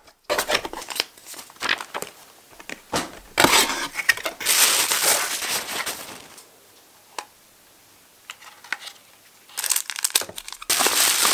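Cardboard box and plastic packaging rustling and crinkling as a camera is unboxed by hand, in irregular bouts with small clicks. It goes nearly quiet for a few seconds past the middle, then the crinkling picks up again near the end.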